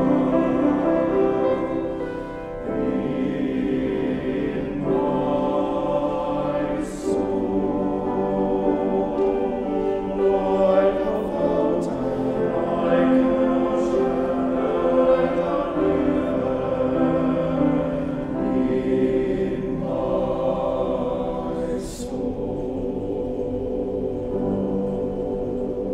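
Men's choir singing in harmony, holding long chords that shift every few seconds, with the sharp 's' sounds of the words coming through now and then.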